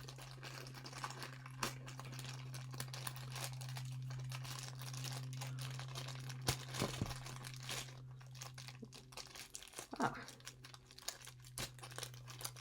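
Crinkling and rustling of plastic packaging as a Funko Paka-Paka mystery figure is unwrapped, with a few sharper snaps and tears in the middle. A steady low electrical hum runs underneath.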